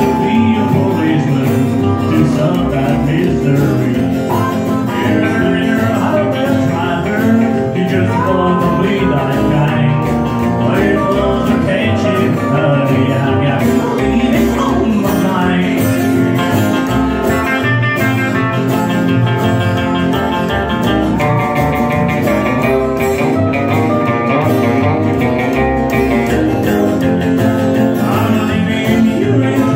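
A country rockabilly band playing live: upright bass, strummed acoustic guitar, electric guitar and steel guitar, with a steady beat and sliding notes.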